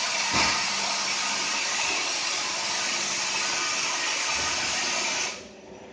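Vertical insert-molding press hissing steadily while it works, the hiss cutting off suddenly about five seconds in.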